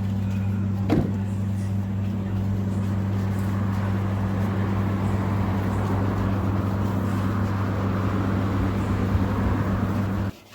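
Steamed rice stir-frying in a wok: a steady sizzling hiss over a loud, steady low hum, with one sharp knock about a second in. It cuts off abruptly near the end.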